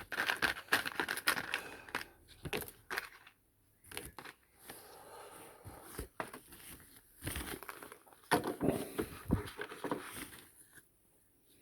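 Small die-cast metal and plastic model parts being handled and fitted together by hand: irregular clicks and taps, with crinkling rustles of paper.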